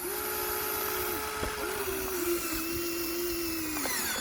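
Small electric motor and gearbox of a radio-controlled construction model whining as it runs, briefly dropping in pitch and restarting near the middle, then winding down near the end.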